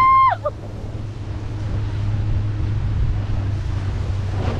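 A rider's short high-pitched squeal right at the start, then a steady rush of wind on the microphone and churning water spray as the banana boat is towed at speed, over a low steady hum.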